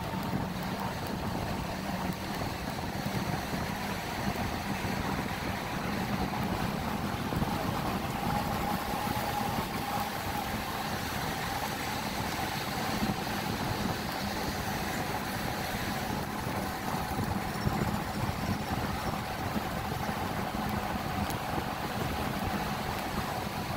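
Steady wash of ocean surf with wind buffeting the microphone, over a faint constant low hum.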